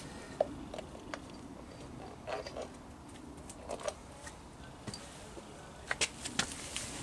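Scattered light clicks and knocks of hand tools being handled, in small clusters every second or two, the sharpest near the end.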